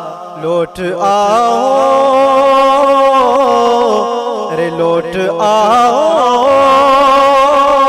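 A man singing a naat, an Urdu devotional poem, solo into a microphone, stretching the words into long held notes with winding ornaments. A short break for breath comes about half a second in.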